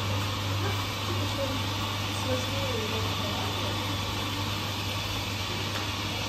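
Steady low hum with an even hiss, and a faint voice in the background.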